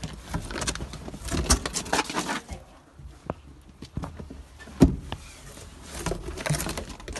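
Handling noises in a wooden rabbit hutch: a hand rustling and scraping through the bedding, with scattered clicks and a sharp knock about five seconds in.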